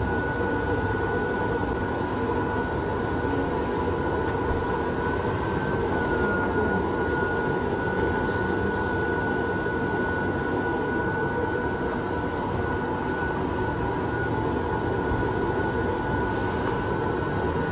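Electric blower fan of a large inflatable Halloween decoration running steadily: a rush of air with a steady high tone over it.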